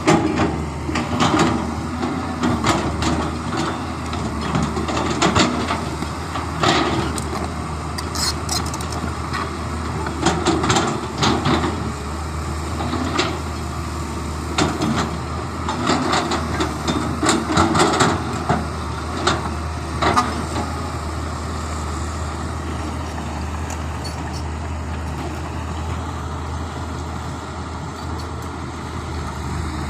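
Excavator's diesel engine running steadily, with a series of sharp metallic clanks and knocks through the first twenty seconds or so, then mostly the steady engine.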